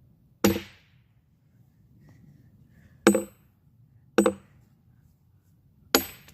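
Four ringing metal-on-metal hammer blows on a steel splitting tool being driven into a log to split it, spaced unevenly a second or two apart.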